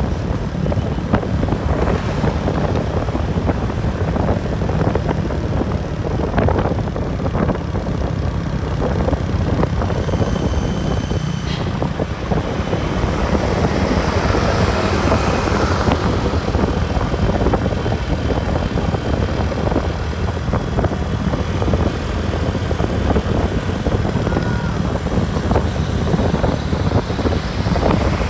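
A moving bus, heard as a steady low engine-and-road rumble, with a brief high tone about ten seconds in.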